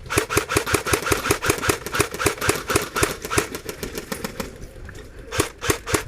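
Airsoft gun firing on full auto: a rapid, even string of shots that fades about four and a half seconds in, then three single shots near the end.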